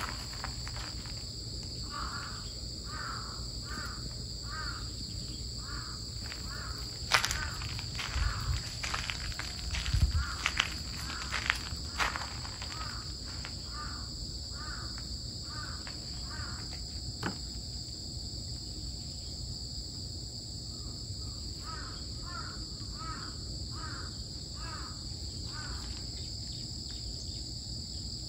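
Outdoor ambience: a steady high-pitched drone of insects, with a bird calling in runs of short repeated notes, about two a second. A few sharp knocks and clatters come between about seven and twelve seconds in.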